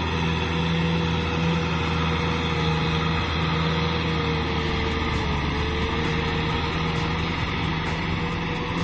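Kubota M6040SU tractor's four-cylinder diesel engine running steadily as it pulls a rotary tiller through flooded paddy mud, its pitch dipping slightly about five seconds in.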